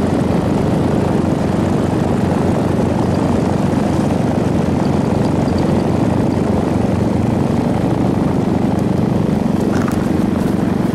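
Paramotor engine and propeller running steadily in flight, heard close up from the pilot's seat.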